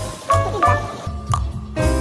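Background music: a run of short pitched notes over a low bass line, with fuller chords coming in near the end.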